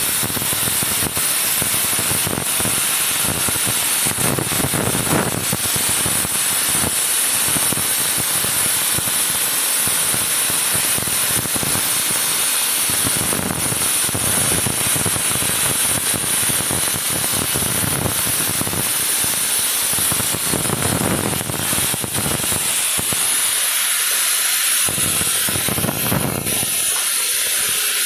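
CNC cutting machine at work: a loud, steady hiss with irregular low rumbling underneath. Near the end the rumble drops away, leaving the hiss and a few faint steady tones.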